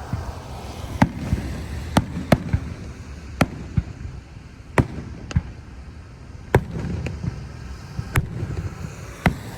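Fireworks going off: about a dozen sharp bangs at irregular intervals over a low rumble.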